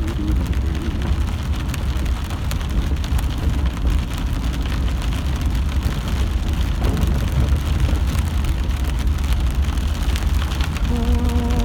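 Rain pattering on a moving car, heard inside the cabin over a steady low road rumble.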